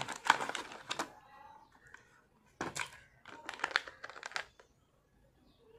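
Clear plastic blister packaging crinkling and crackling as it is handled and opened, in three short spells of crackle with pauses between.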